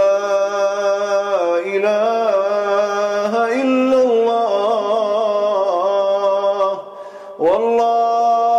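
A man chanting in long, drawn-out notes with wavering, ornamented pitch: melismatic Iraqi-style religious chanting. The phrase breaks off about seven seconds in, and a new held note begins half a second later.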